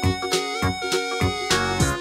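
Upbeat background music with a steady drum beat and held instrument notes.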